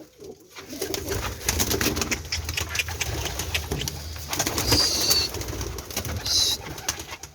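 Domestic pigeons cooing and shifting about, with rustling, clicking and a few short high squeaks over a low hum.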